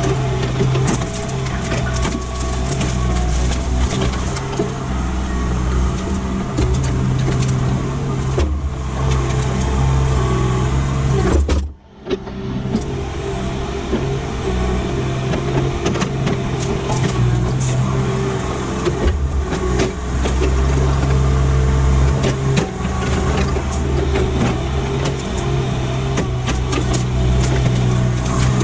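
Kubota SVL75-2 compact track loader's diesel engine running steadily, with frequent clanks and rattles. The sound drops out briefly about twelve seconds in.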